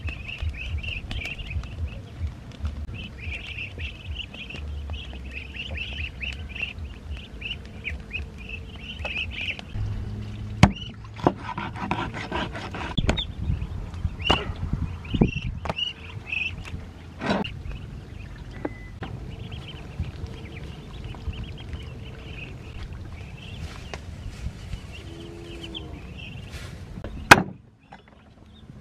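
Ducklings peeping in a steady stream of high, rapid calls, with duck calls mixed in and a few scattered sharp knocks like a knife chopping on a wooden board.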